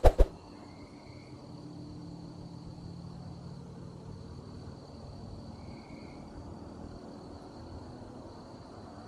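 Night insects trilling in one thin, steady high tone over a faint low hum. A quick run of three sharp knocks sounds at the very start.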